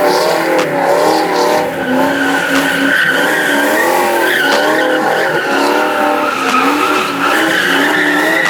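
A car spinning its tyres: the tyres squeal continuously while the engine's revs bounce up and down underneath.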